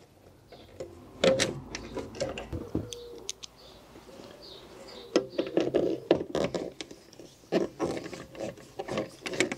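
Irregular clicks and knocks of hands fitting a car speaker onto its mounting studs and fixings in a trim cavity.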